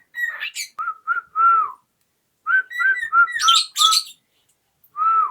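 Cockatiel whistling a mimicked tune: short, clear whistled notes in two quick phrases, then a single note near the end, with some higher chirps mixed in.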